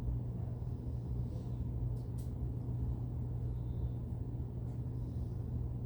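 Steady low hum of background room noise, with a couple of faint clicks about two seconds in.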